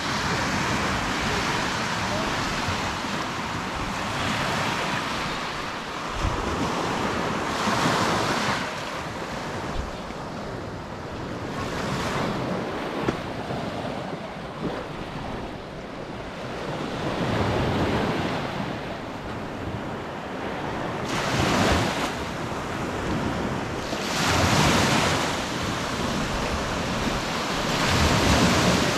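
Small Baltic Sea waves breaking and washing up on a sandy beach, the surf swelling and falling every few seconds.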